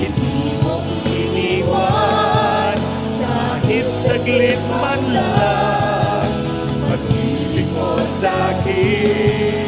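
Live worship music: a slow Tagalog praise song, with singing in long wavering notes over steady held chords and a light beat.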